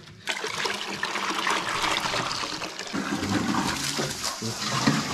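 Water being poured from a container into a plastic bucket for cattle to drink, a splashing pour that starts about a third of a second in and keeps going.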